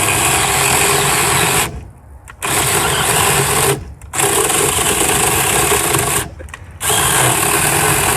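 Brookstone mini battery-powered electric chainsaw running under load as it cuts into a hardwood log, the motor stopping briefly three times between four runs. The chain drags and cuts slowly in the wood; the owner says it does not like cherry or maple.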